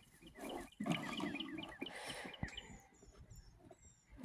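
A small bird chirping: a quick run of short falling chirps, then a few thin high whistles near the end.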